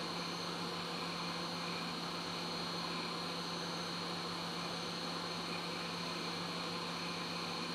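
Hot air rework station blowing at low (20%) airflow: a steady hum with an even hiss of air.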